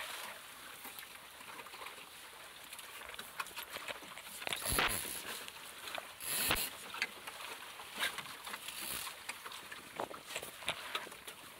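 Water lapping and splashing against the hull of a small sailing dinghy under way, with scattered clicks and knocks from the boat's fittings and lines, and two louder splashes near the middle.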